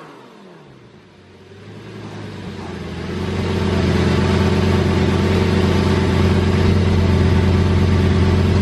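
Lamborghini Gallardo's V10 exhaust on a cold start: the tail of a rev dies away at the start, then the engine settles into a steady idle that grows louder over the next few seconds and holds.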